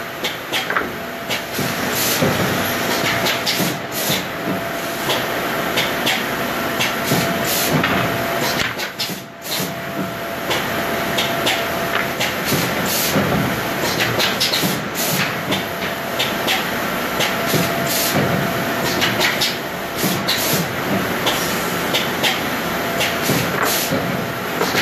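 Woodworking machinery running in a board factory: a steady hiss of machine noise, with frequent sharp clacks and knocks as boards are handled and fed through. The din briefly dips about nine seconds in.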